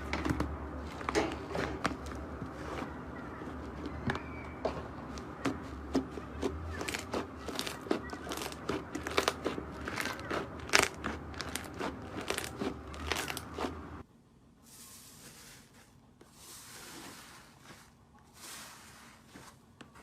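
Slime being squeezed and pulled by hand: a dense run of sticky clicks and crackling pops, then after a sudden cut, softer squishing.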